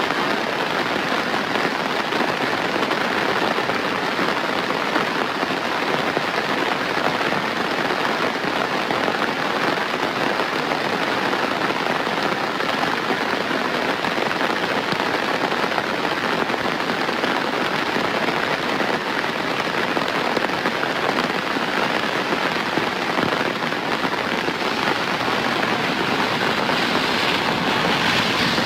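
Steady heavy rainfall: a dense, even hiss of falling rain with a fine crackling patter of drops, unchanging throughout.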